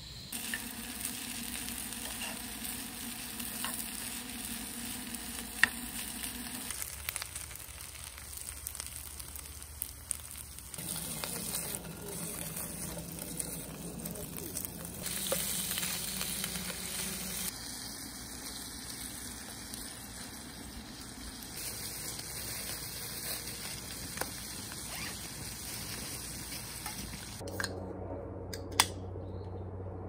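Food sizzling and frying in a pan on a portable gas canister stove, first rice and then sliced meat, with a few sharp clicks. The sizzle drops away near the end.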